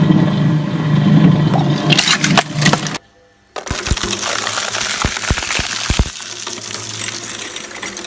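Balloons being burst by a jet of water: sharp pops and cracks over a rushing spray and a steady machine hum. About three seconds in, it cuts out for half a second, then the spray returns with a quick run of several pops.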